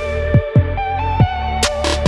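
Electronic music soundtrack: held synth notes over a heavy bass, with a kick drum thumping twice and a sharp cymbal-like hit near the end.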